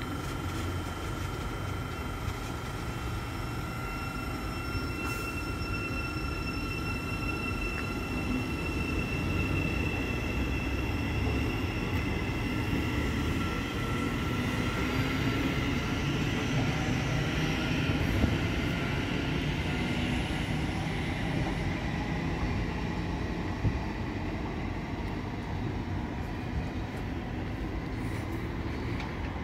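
Thameslink Class 700 electric train pulling out of the platform. Steady electric whines sound at first, then the rumble of the train rolling away swells in the middle and eases off, with a couple of sharp clicks.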